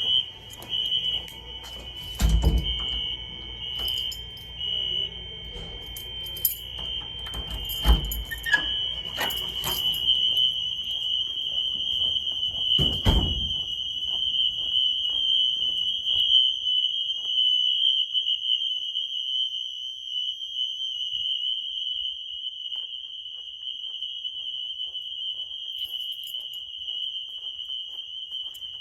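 Fire alarm signal sounding: a loud, high, steady tone that breaks up in the first few seconds, then runs continuously from about six seconds in. Three heavy thumps come in the first half.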